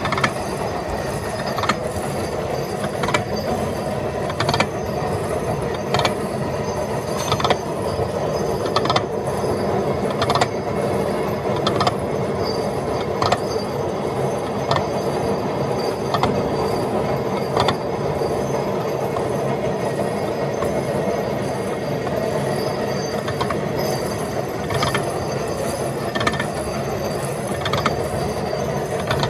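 Gear-cutting machinery running steadily with a dense mechanical clatter, and a sharp click about every one and a half seconds.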